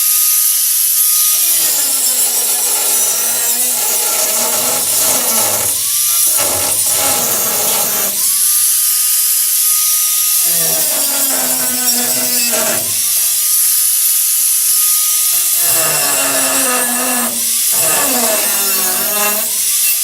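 Electric power tool cutting steel stock for a support member. The motor runs at a steady pitch when free and drops in pitch under a noisy cutting sound each time it bears into the metal, then winds back up, about four times over.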